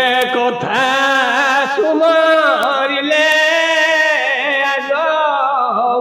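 A man chanting verses of the Odia Bhagavata in a slow, drawn-out melodic recitation, holding long notes with a wavering pitch.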